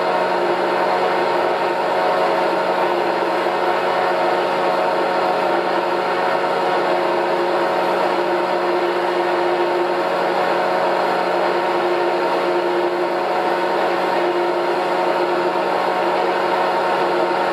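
Petzholdt PDSM double-screw mixer running its electric drive with a steady hum, made of several even tones, while the jacketed mixing pan slowly tilts forward.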